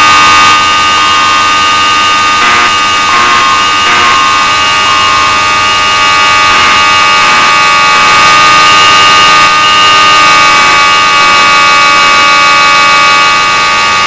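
Fire alarm system's alarm signal sounding: a loud, steady buzzing tone that holds without a break between voice evacuation messages.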